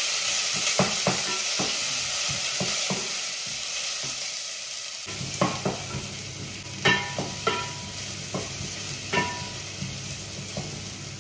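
Sliced onions sizzling in oil in a stainless steel pot while a wooden spoon stirs them, with repeated scrapes and knocks of the spoon against the pot. They are being sautéed slowly toward brown.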